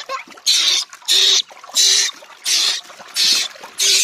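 Water splashing in short, evenly spaced bursts, about six in all, as hands wash a baby monkey in a tub of foamy water, with a trickle between them.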